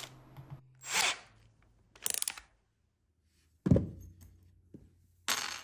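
A few short scraping and rattling handling noises, then a solid thud a little past halfway as a cordless drill is set down on a hardwood floor. A brief rustle follows near the end.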